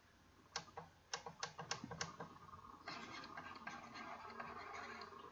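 Five light, sharp clicks about a third of a second apart, then a soft scratching from about three seconds in: computer input clicks and pen-stroke noise as handwriting is written on screen with a digital pen tool.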